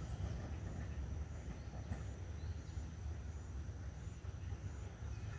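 Outdoor rural ambience: a short, high chirp repeats about once a second over a steady low rumble.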